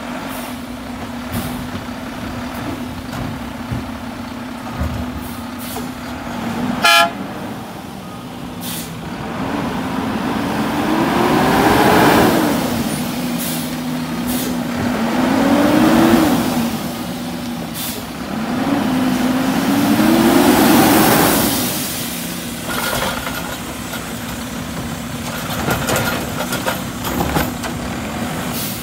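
Mack LR garbage truck's engine idling, with a short horn toot about a quarter of the way in. The engine then revs up three times, rising in pitch each time as the truck pulls ahead and shifts, and settles back to idle near the end.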